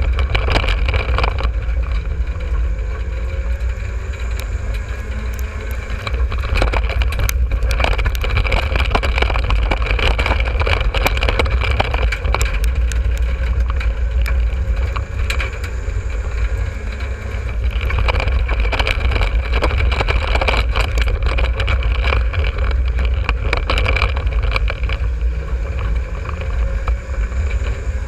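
Dirt-track race car's engine running hard, heard from inside the caged cockpit, with deep rumble and frequent clunks and rattles from the car over the rough track. The level dips briefly a few times and comes back up.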